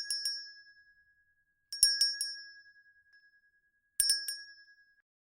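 Handbell rung as the end-of-time signal: three shakes about two seconds apart, each a quick flurry of clapper strikes over a ringing tone that dies away.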